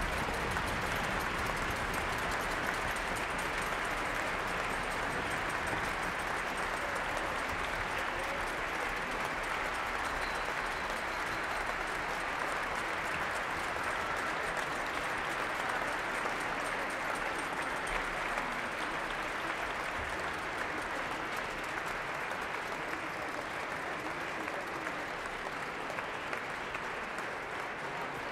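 Concert audience applauding steadily: dense clapping from a full hall, easing off slightly toward the end.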